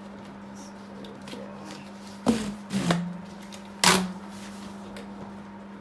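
Plastic knocks and clatter from a portable air conditioner's flexible exhaust hose being handled and fitted: three sharp knocks a little over two seconds in, near three seconds and near four seconds, the last the loudest.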